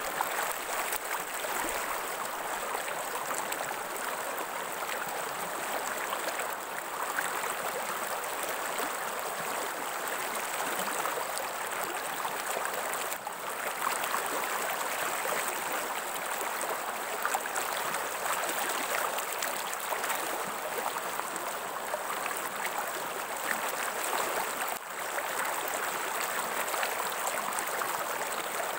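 Running water of a stream, a steady rushing and burbling that dips briefly a few times.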